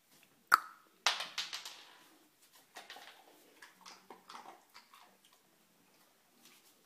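A sharp knock about half a second in, then a clattering rattle that dies away within a second, followed by scattered light taps, as a dog noses at a wooden kitchen cabinet door.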